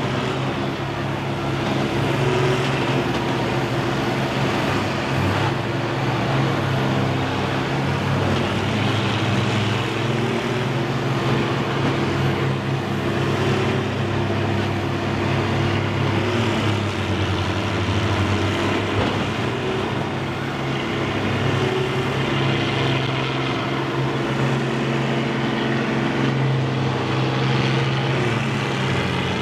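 Several combine harvester engines running together in a low, steady drone, with the revs rising and falling a little as the machines push against one another.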